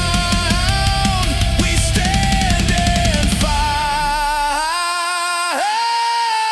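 Loud rock song with driving drums and bass under a high melody line. About four seconds in, the drums and bass drop out, leaving the melody holding a long wavering note.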